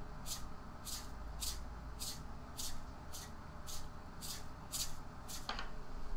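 Roasted sesame seeds shaken out of a plastic-capped container, a short dry rattling hiss with each shake, about two a second, stopping near the end.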